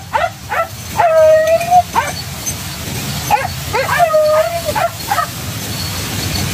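Hunting dogs baying on the chase. Runs of quick yelps are broken by two long drawn-out bays, one about a second in and one past the middle.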